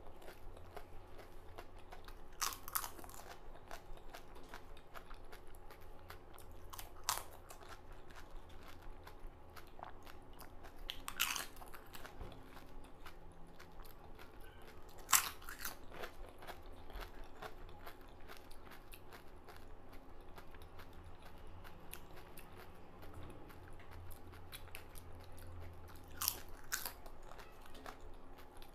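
Crisp fried panipuri (golgappa) shells, filled with spicy water, being bitten and chewed: separate sharp crunches every few seconds, the loudest about halfway through, with quiet chewing between.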